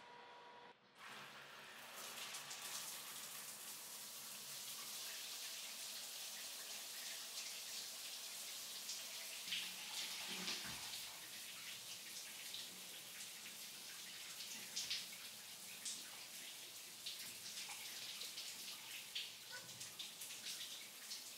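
Shower running: a steady hiss of spraying water with scattered splashes and drips, starting about a second in.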